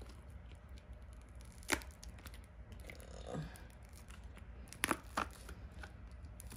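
Silicone mold being flexed and peeled off cured epoxy resin, soft rubbery rustling with a few sharp snaps as the resin pulls free: one about two seconds in and two close together about five seconds in.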